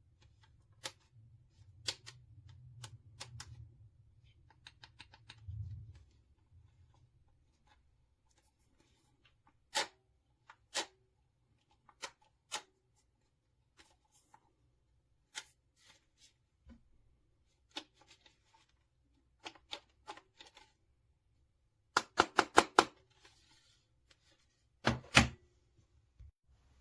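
Scattered sharp clicks and knocks of small plastic parts being handled, with a quick run of five or six clicks a little past twenty seconds in and a couple of louder knocks soon after.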